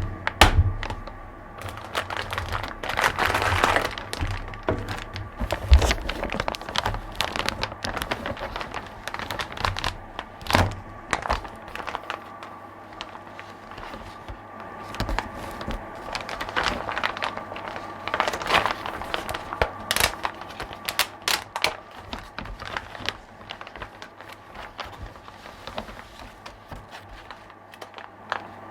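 Packaging being handled and unwrapped: crinkling plastic and cardboard rustles with scattered knocks and clicks, thinning out toward the end, over a faint steady hum.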